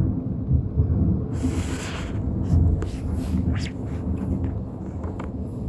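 Thunder rumbling on after a close lightning strike, with a brief hiss about a second and a half in and scattered light ticks.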